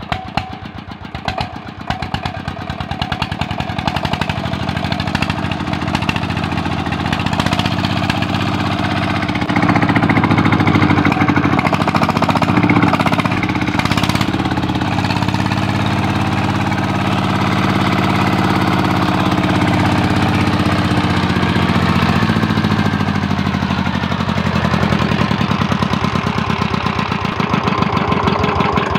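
Single-cylinder horizontal diesel engine of a tubewell pump set running with rapid, even firing knocks. It grows louder over roughly the first ten seconds after starting, then runs steadily.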